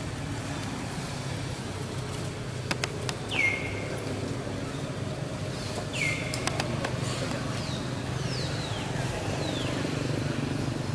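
Outdoor ambience: a steady low hum with a few light clicks, two short high-pitched calls about three and six seconds in, and several fainter falling chirps near the end.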